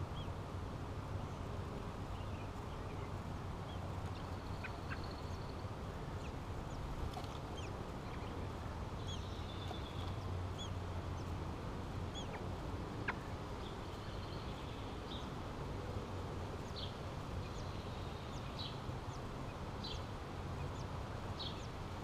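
Short, high bird chirps and thin whistles, scattered at first and coming in quick clusters over the last few seconds, over a steady low rumble.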